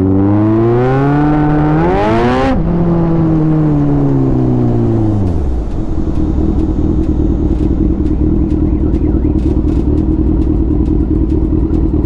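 Kawasaki Z900's 948 cc inline-four accelerating hard, its pitch climbing for about two and a half seconds. The pitch then drops sharply and winds down as the bike slows. From about six seconds in it settles to a steady low idle.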